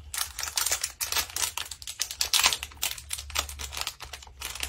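Thin plastic toy packaging crinkling and crackling in a small child's fingers as she works at unwrapping a toy ring, a rapid irregular run of small clicks that is busiest about halfway through.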